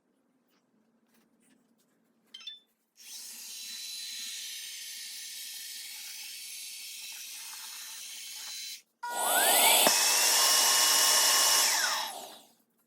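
Roomba i3+ robot vacuum docking at its Clean Base: a steady vacuum noise that cuts off after a few seconds, then the base's suction motor starts with a rising whine, runs loudly for about three seconds and winds down as it empties the robot's dust bin.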